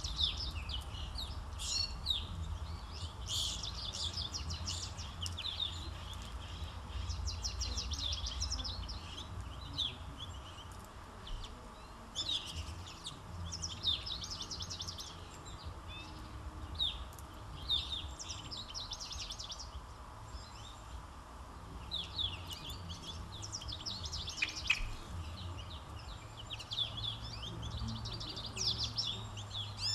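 Backyard songbirds singing and chirping in many short, quick, high-pitched phrases that overlap and come in clusters with brief gaps, over a steady low rumble.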